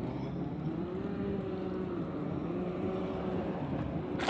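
Car engine running with road noise while driving, its low hum rising and falling gently in pitch, with a short click near the end.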